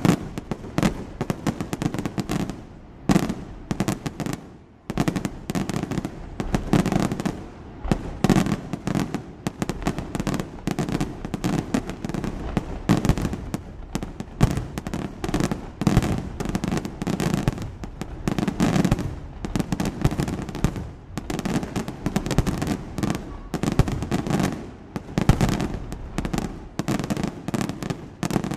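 Fireworks display: a dense, continuous barrage of bursting shells and firecracker-like bangs, many a second, with the loudness surging and dipping from volley to volley.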